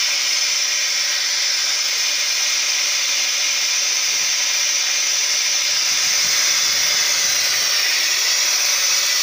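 Steady, loud hiss of compressed air venting from the brake pipe through an LHB passenger coach's alarm-chain (emergency brake) valve. It is the sign that the emergency chain has been pulled and the valve not yet reset.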